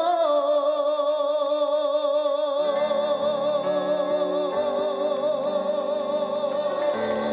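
A male trot singer holds the song's last note with a steady vibrato over a live backing track. About two and a half seconds in, low sustained chords from the accompaniment join under the note.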